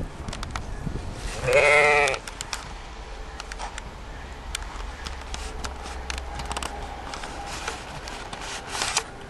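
A sheep bleats once, about a second and a half in: a single wavering bleat about half a second long. Light rustles and clicks follow, as the sheep move about in the straw.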